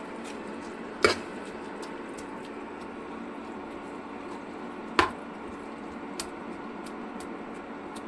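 Kidney-bean curry simmering in a pan, a steady bubbling hiss, with two sharp knocks of a metal ladle against the pan, about a second in and about five seconds in, and a lighter tap soon after.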